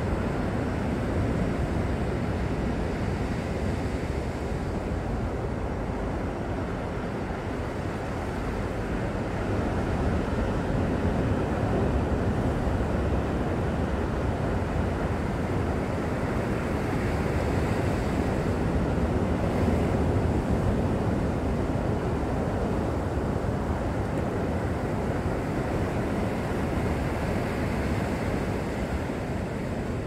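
Ocean surf washing steadily against the rock shelf, with wind rumbling on the microphone. It swells a little in the middle.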